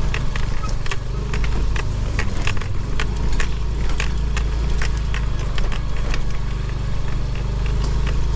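Motorcycle engine running steadily at low revs. Many short, irregular clicks and rattles sound over it.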